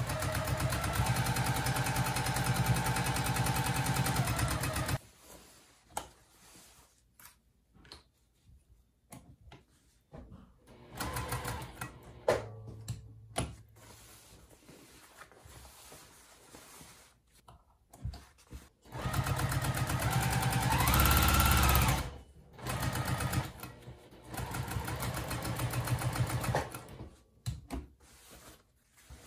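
Electric sewing machine stitching through a denim jeans hem in several runs: a steady run of about five seconds, then shorter starts and stops. Quieter stretches of fabric handling lie between the runs.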